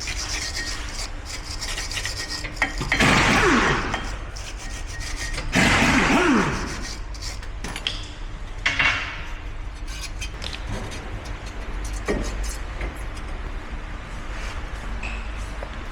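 Rasping, rubbing noise of work on a car's front brakes: three loud bursts, the middle two with a falling whine, and lighter scrapes between them over a steady low hum.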